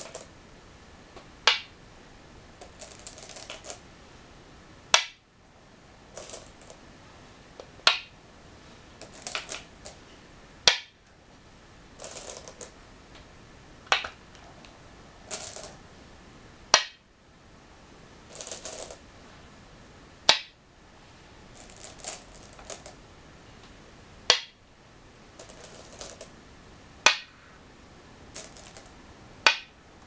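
Go stones being set down one at a time with sharp clicks on a wooden go board, about a dozen placements every two to four seconds. Between them comes the softer rattle of stones in their bowls as the next stone is picked up.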